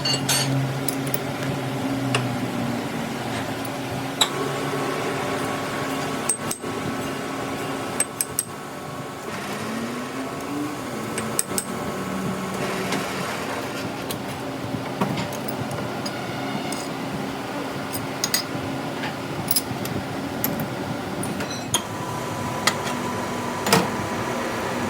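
A machine running steadily, its hum rising and falling briefly about ten seconds in, with scattered sharp clicks and knocks of tools on metal parts.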